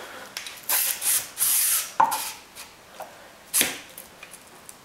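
Telescoping legs of a camera tripod being pulled out: two short scraping slides, then two sharp clicks.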